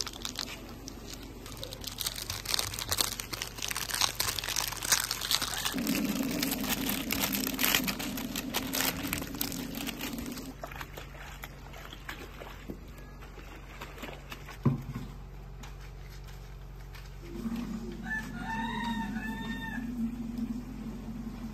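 Rustling and splashing of clothes being hand-washed in a plastic basin of soapy water, with detergent powder poured in. A rooster crows once near the end.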